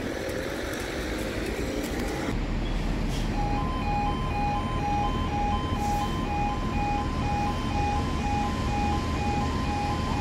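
Level crossing warning alarm starting up about three seconds in: two alternating electronic tones pulsing evenly, sounding as the road signals go amber and then red to warn that the barriers are about to come down for a train. Before it, road and wind noise.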